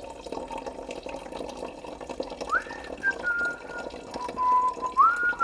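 Water running from a holy water font's small tap into a plastic bottle. From about halfway in, a person whistles a few held notes of a tune over it.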